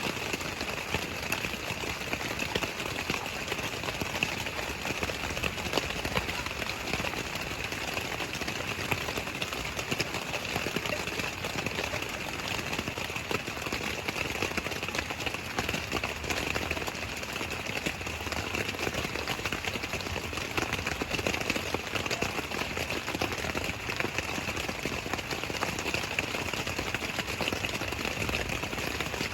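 Steady rain falling, with many close drops ticking irregularly over a constant rush of water.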